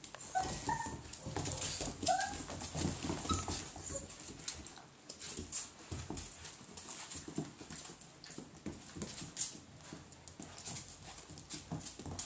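Puppies playing, with several short high whimpers in the first few seconds and claws clicking and scrabbling on a hard floor.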